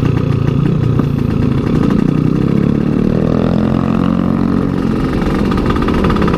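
Motorcycle engine heard from the rider's own bike while riding, its pitch rising about halfway through as it accelerates.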